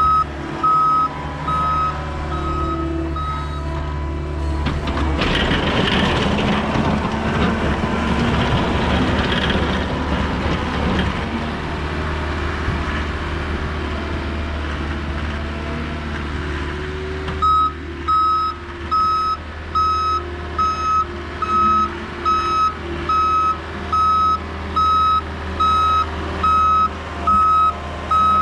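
Backup alarm of a John Deere 325G compact track loader beeping steadily, a little more than once a second, while the loader reverses, over the steady drone of an engine. The beeping stops about four seconds in, giving way to several seconds of louder rushing, scraping machine noise, and starts again a little past the middle.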